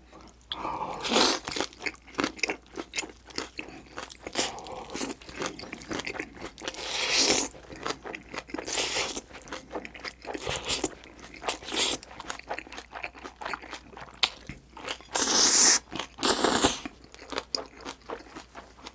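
Close-miked eating of spicy jjolmyeon (chewy cold noodles) with green onion kimchi: several loud slurps of noodles, with wet chewing and crunching clicks between them.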